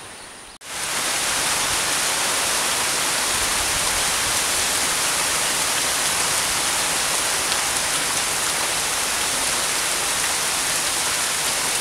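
Steady rain falling on grass and trees, an even hiss that cuts in abruptly about half a second in.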